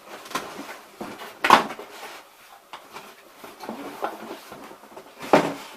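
Hands handling and opening a cardboard shipping box: a few sharp knocks and clicks with faint rustling between, the loudest about a second and a half in and near the end.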